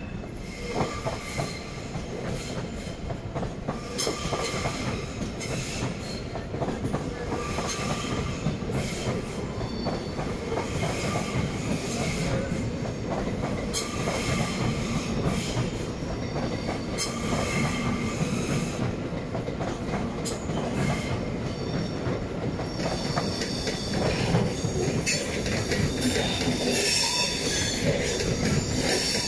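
Swiss passenger trains, double-deckers among them, rolling slowly over the points of a busy station approach. Wheels squeal in high, wavering tones on the curves and click over the switch joints, over a steady rumble that grows louder toward the end as the trains draw closer.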